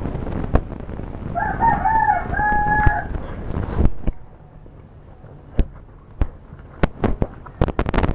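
A rooster crows once in the background over a steady rushing noise, which cuts off abruptly about four seconds in. After that come scattered sharp clicks and smacks of someone eating close to the microphone.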